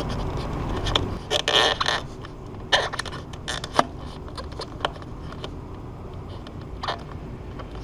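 New magnetic door weather strip being cut to length with a hand tool: a cluster of crunching cuts about a second in, then single clicks and scrapes at irregular intervals.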